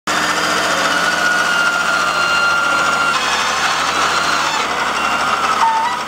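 Caterpillar 950F wheel loader running under load: a steady engine sound with a high whine over it, which shifts in pitch and character about three seconds in.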